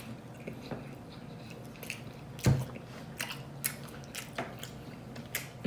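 Close-miked mouth sounds of a person eating a chicken Philly sub: wet chewing and lip-smacking made of many small clicks, with one louder thump about halfway through.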